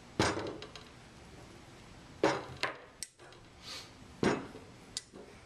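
Stainless-steel parts of an automatic sampler being handled and set down on a wooden workbench: about five sharp knocks and clunks of metal against wood, spaced irregularly.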